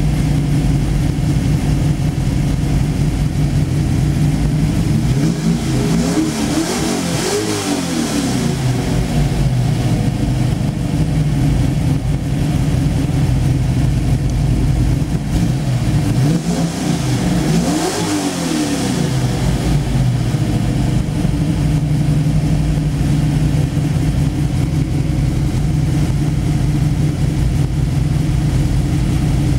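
Ford Racing 351 SVO small-block V8 idling steadily, heard from the driver's seat. It is revved twice, about five and sixteen seconds in, each time rising in pitch and falling back to idle.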